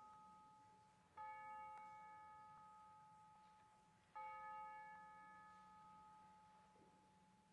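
A bell struck twice, about three seconds apart, each strike ringing at the same pitch and slowly fading; the ring of an earlier strike is dying away at the start.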